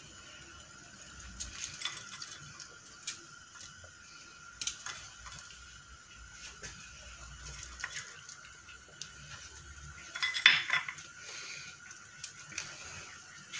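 Scattered light clinks and taps of kitchen utensils against a metal baking tray and dishes while tartlets are decorated, with a louder clatter about ten and a half seconds in. A faint steady high-pitched hum runs underneath.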